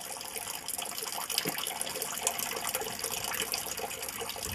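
Water running from a village fountain's spout into its concrete trough, a thin steady stream, splashing as a muddy shoe is rinsed under it.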